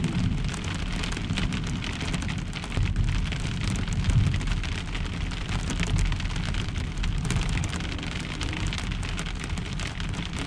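Heavy rain drumming steadily on a pickup truck's camper shell, heard from inside, a dense patter of drops over a low rumble.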